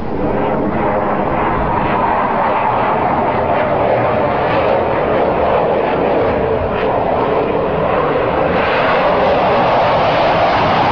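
Jet engine noise from a low-flying military fighter jet: a steady, loud rush that grows a little louder and brighter about eight and a half seconds in.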